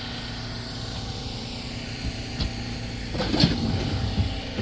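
An engine running steadily with a constant hum, and a crunching scrape a little past three seconds in as a shovel digs into soil.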